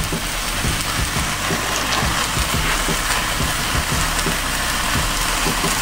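A large porterhouse steak burning in a grease flare-up on a grill: a steady rush of flames with fat sizzling and crackling, and scattered small pops.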